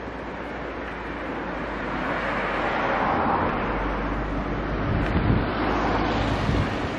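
A small kei pickup truck comes up from behind and passes close by, its tyre and engine noise swelling over several seconds. Wind buffets the microphone in low gusts near the end.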